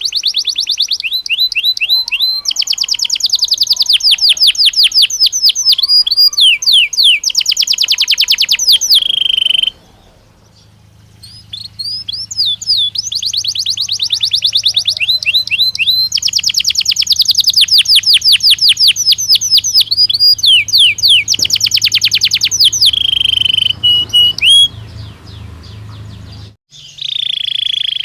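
Belgian canary singing long phrases of rapid high trills, rolls and quick up-and-down notes. There is a gap of about a second near the middle and a brief break near the end. A low steady hum sits under the second phrase.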